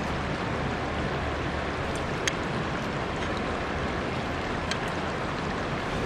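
Steady rush of flowing river water, with two brief sharp clicks.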